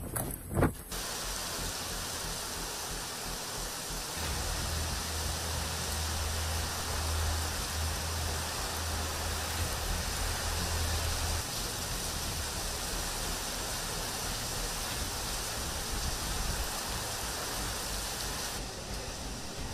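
Heavy rain falling steadily, an even hiss of downpour. Wind gusts buffet the microphone for about the first second, and a low hum runs underneath from a few seconds in until about halfway.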